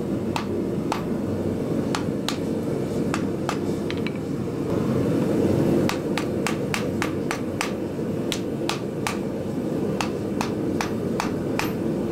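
Hand hammer striking a white-hot mild steel axe body on an anvil at welding heat: light, quick blows forge-welding the wrapped eye. The blows come about two a second, pause for a couple of seconds near the middle, then resume faster, about three a second, over a steady low background rush.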